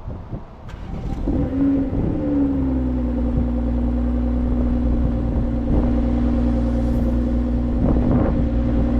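BMW X3 M40i's turbocharged 3.0-litre inline-six cold-starting on its factory downpipes. It catches about a second in, flares up, then settles to a steady fast idle.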